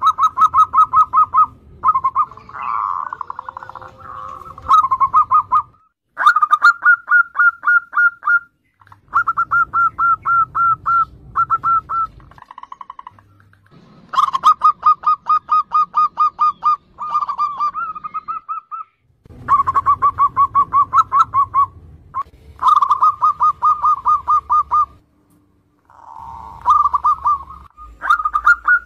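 Zebra doves (perkutut) cooing: run after run of rapid staccato notes, about eight to ten a second, each run lasting one to two seconds with short breaks between.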